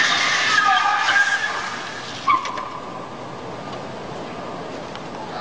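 Cars moving on a city street, with high wavering squeals through the first second and a half and a short sharp tone about two seconds in, then steady traffic noise.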